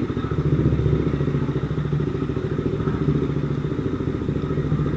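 CFMOTO 300SR single-cylinder motorcycle engine running steadily at low revs as the bike rolls slowly away. A faint high-pitched intermittent beeping starts near the end.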